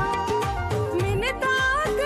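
Background music: a song with a steady drum beat under a held, gliding melody line.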